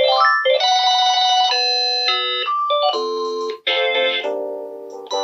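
Panasonic KX-TGE633M cordless handset playing ringtone previews: electronic ringtone melodies. One tune plays for about three seconds, then it switches abruptly to two shorter ones as the ringtones are stepped through.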